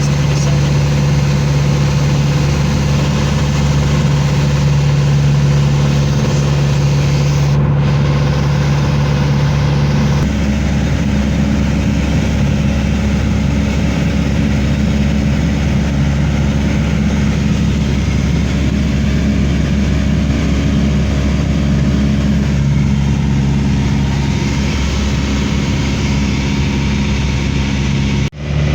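A vehicle engine runs with a steady low drone and hum under a constant noise; the pitch of the hum shifts about ten seconds in. The sound breaks off briefly near the end.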